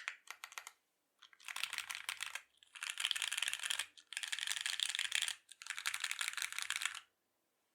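Typing on a Singa x TGR Unikorn R1 mechanical keyboard with lubed Alpaca V2 linear switches, an aluminium plate and GMK keycaps: a few separate keystrokes, then four dense runs of rapid keypresses, stopping about seven seconds in.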